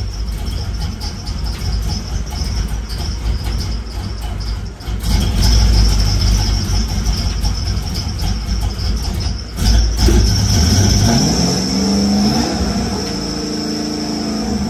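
LS1 V8 engine running in the car, with a steady high-pitched whine over it; about ten seconds in the engine note dips, then rises in a quick rev and holds at a higher, steadier speed.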